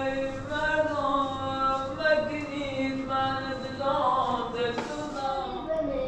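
A single voice singing slow, drawn-out notes that bend and glide in pitch, heard as music over the scene.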